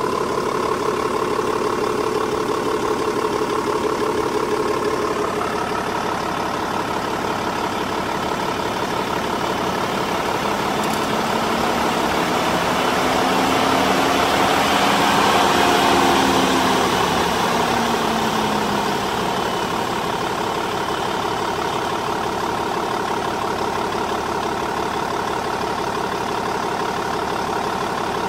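Electric auxiliary A/C condenser fans of a Mercedes E 320 CDI (W210) whirring over the idling diesel engine. About ten seconds in the fans spin up to a rising whine, peak, and slow down again over several seconds instead of running steadily: a sign of their supply voltage swinging between about 1 and 13 volts, which the owner finds abnormal.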